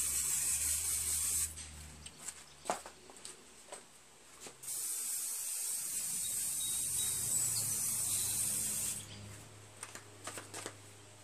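Aerosol can of tire foam spraying in two long hisses: the first cuts off about a second and a half in, the second starts near the middle and runs about four seconds. Light clicks and taps come between and after the sprays.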